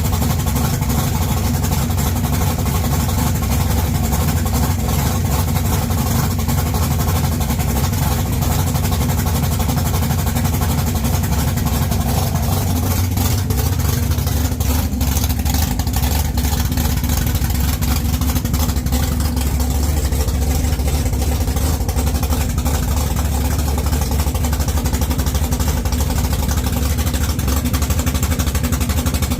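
1969 Camaro drag car's engine running at a steady idle, loud throughout, with a slight change in its note about halfway through.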